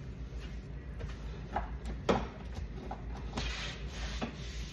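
Light knocks and clicks of things being handled in and around a refrigerator during cleaning, the loudest about two seconds in, with a brief hiss just past the middle.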